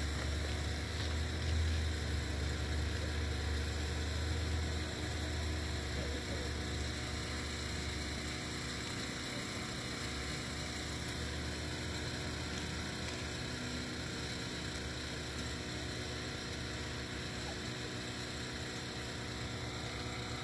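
Steady low droning hum with no bangs or bursts; no firework goes off.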